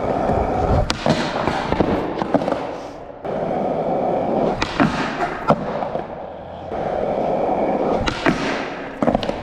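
Skateboard wheels rolling over hard ground in three stretches, broken by sharp clacks and impacts of the board during an attempt at a noseslide trick on a bench that is not landed.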